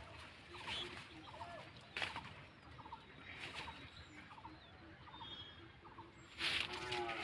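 Birds calling over and over, short repeated notes, with the rustle of bean vines and leaves being handled; a louder rustle comes near the end.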